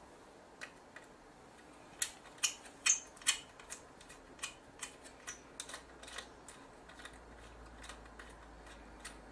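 Irregular sharp clicks and ticks of the plastic LCD screen assembly of a Sony PMW-EX3 camcorder being worked on by hand during disassembly. The clicks come thickest and loudest about two to three and a half seconds in, then thin out to lighter ticks.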